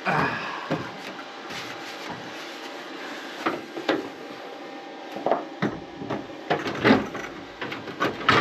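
Irregular knocks, clunks and scrapes as a ride-on mower's bonnet is worked down over a newly welded battery box, a tight fit. They come more often in the second half. A faint steady hum runs underneath.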